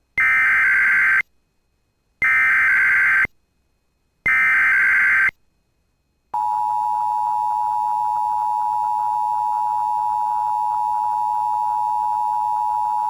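Emergency Alert System SAME header: three identical one-second bursts of shrill modem-like data tones, the coded header that carries the alert's type and area. About six seconds in the two-tone EAS attention signal starts and holds steady.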